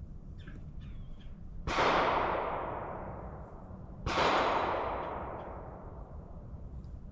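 A CZ 457 .22 rimfire rifle firing: a sharp report about a second and a half in, then a second similar burst about two and a half seconds later. Each trails off over about two seconds.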